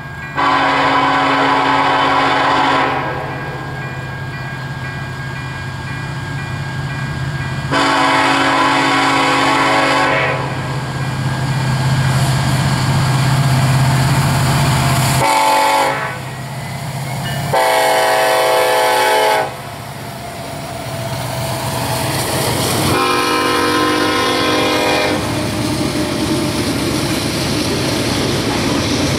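Union Pacific freight locomotive horn sounding the grade-crossing pattern of two long blasts, a short one, then a long one, with further blasts as the train arrives. A diesel engine drone rises beneath as the locomotives near, then gives way to the steady rolling of loaded grain hopper cars passing.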